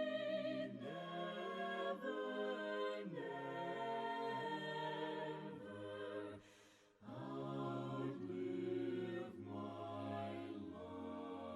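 A cappella congregation or choir singing a slow hymn in sustained chords, with a brief break between phrases about six and a half seconds in.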